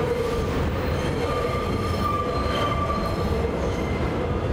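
Subway train running, a steady loud rumble with the wheels squealing in held high tones.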